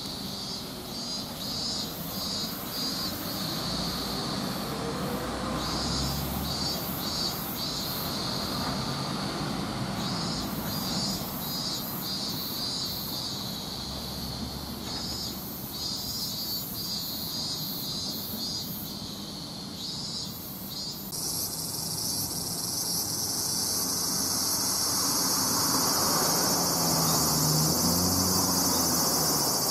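Chorus of insects chirping high-pitched in pulsed, rhythmic bursts, switching about two-thirds of the way through to a continuous high buzzing trill. A low steady rumble runs underneath.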